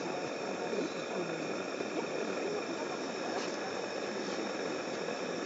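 Indistinct overlapping voices of several people talking, over a steady hiss.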